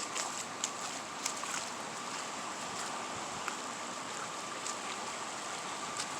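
Steady rush of wind and rain from the passing storm, with scattered sharp ticks and a faint steady high hum underneath.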